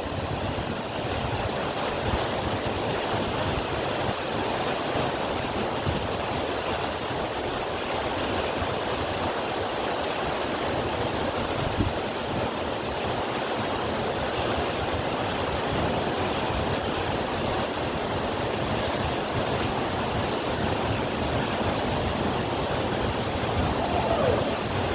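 Waterfall's water rushing steadily, a continuous even roar of falling water.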